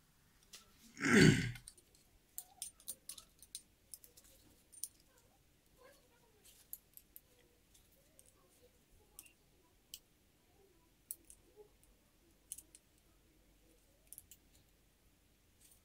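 Light, irregular metallic clicks and ticks from handling a freshly bolted-together 1/5-scale RC two-stroke engine crankcase and turning its crank by hand to check that it still moves freely. A short, louder whoosh about a second in.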